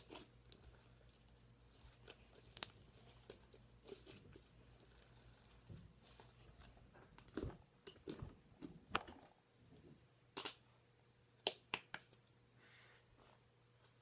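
Slime being mixed with added yellow colouring: scattered faint sticky clicks and squelches, with a few sharper clicks.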